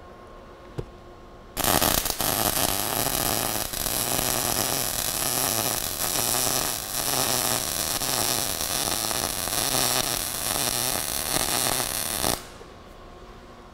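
MIG welding arc on steel, running at 17.2 volts with a steady crackle; it strikes about a second and a half in and stops about a second before the end. The arc sounds good, as a well-set MIG weld should.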